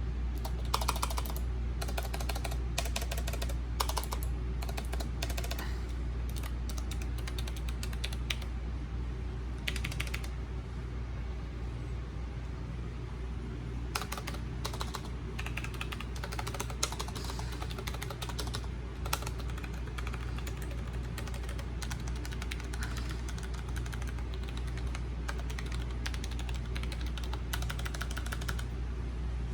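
Random typing on a Logitech MX Mechanical keyboard: bursts of keystrokes on the clicky-switch version, then, after a pause of a few seconds partway through, more typing on the tactile-switch version. A steady air-conditioner hum runs underneath.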